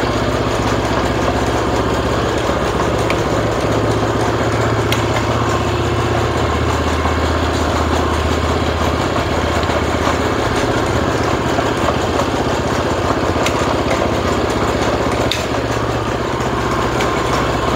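Small four-stroke Kubota engine of a walk-behind reaper-binder running steadily, the machine driving in first gear with its cutter blade engaged, with a few light clicks.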